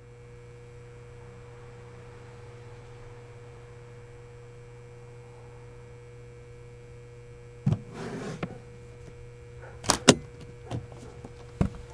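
Steady low electrical hum with a faint steady tone over it. About eight seconds in comes a thump and a short rustle, then about two seconds later two sharp clicks of a suitcase's latches snapping open, the loudest sounds, and one more click near the end.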